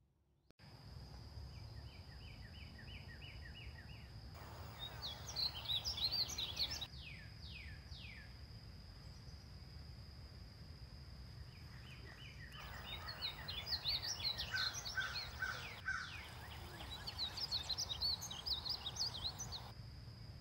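Male painted bunting singing: three bursts of quick, sweet, warbling high notes, each a couple of seconds or more long, with a short run of evenly repeated notes before the first. Under it a steady high whine and a low rumble run throughout.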